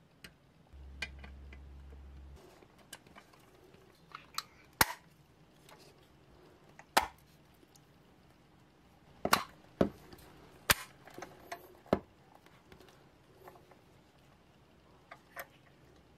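Irregular sharp clicks and knocks of hard objects, about a dozen spread unevenly, the loudest in the middle. A short low hum sounds about a second in.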